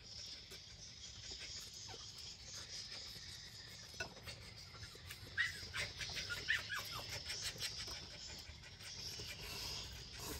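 Spoons and chopsticks clicking against ceramic soup bowls as people eat noodle soup, the clicks bunched in the middle, over a steady high hiss. A few short bird chirps sound in the middle as well.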